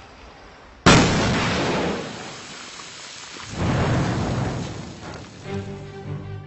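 A sudden loud boom about a second in with a long rumbling decay, then a second rumbling swell; music with held notes starts near the end.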